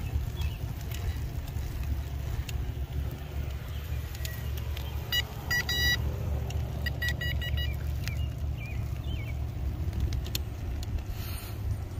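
Steady low wind rumble buffeting the microphone of a camera riding on a moving e-bike. Two short, quick series of high beeping pulses come about five seconds in and again about seven seconds in.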